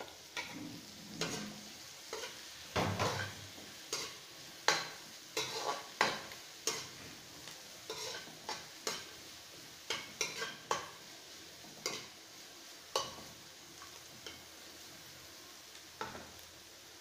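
A metal spoon stirring and scraping around a nonstick wok, with repeated sharp clicks and scrapes that thin out near the end, over a faint sizzle of onions and green chili sautéing in oil.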